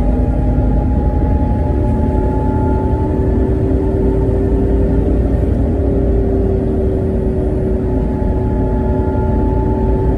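Car engine and road noise heard from inside the cabin while driving: a steady, loud low rumble with a thin whine that creeps slowly up in pitch.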